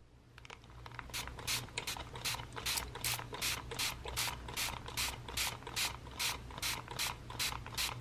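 Regular mechanical rasping strokes, about two and a half per second, starting about a second in.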